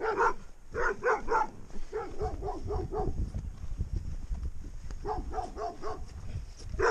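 A dog giving short yelping barks in several quick runs, with pauses between them.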